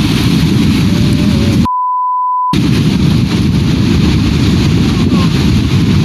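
Loud, continuous rumbling roar of an avalanche sweeping down a slope. About two seconds in, a steady one-tone censor bleep just under a second long replaces all other sound.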